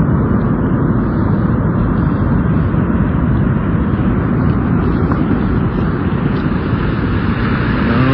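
Avalanche powder blast: a loud, steady rushing roar of wind and snow buffeting a phone microphone.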